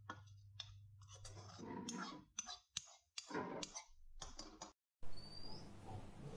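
Light clicks and clinks of a metal utensil against steel cooking pots as food is dished up, over a low hum. After a short dropout, quieter room tone with a brief high chirp.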